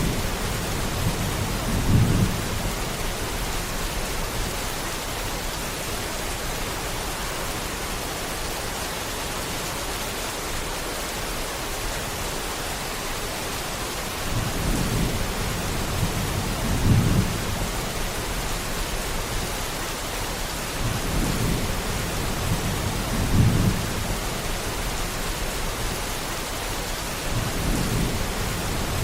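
Steady rain falling, with low rumbles swelling up several times, the strongest about two seconds in, around the middle, and about three quarters of the way through.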